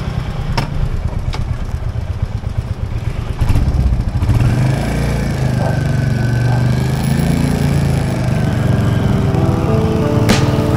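Motorcycle engine idling with a pulsing rumble, then picking up revs about three and a half seconds in as the bike pulls away and rides on at low speed. A sharp click near the end.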